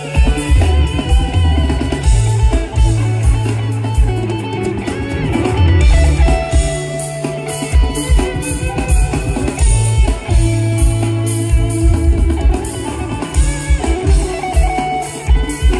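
A live jam band playing loudly through an outdoor concert PA: a sustained electric guitar lead over a steady bass line and drum-kit beat.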